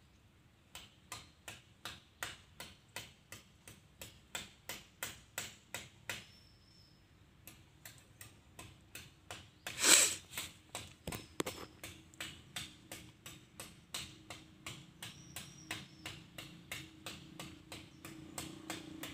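Oil dripping from a car-wash pressure pump's crankcase drain into a container held beneath it: a sharp tick about three times a second, stopping for about a second between six and seven seconds in. One loud knock about ten seconds in.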